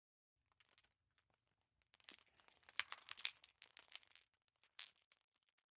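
Faint, irregular crinkling and crackling clicks, busiest in the middle and thinning out toward the end.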